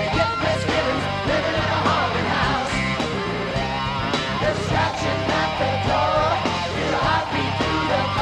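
Live rock music: a band playing with electric guitar and a steady beat, in an instrumental stretch of the song.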